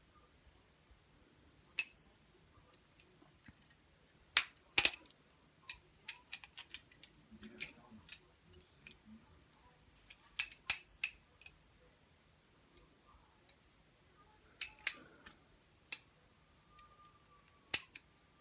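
Butterfly knife being flipped: irregular sharp metal clicks and clacks as the handles swing around and strike, a few of them followed by a brief metallic ring.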